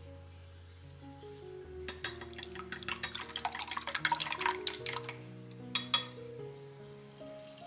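Wooden chopsticks beating raw eggs in a glass measuring jug: rapid clicking and sloshing for about three seconds, then two sharp clicks, the loudest sounds, about six seconds in.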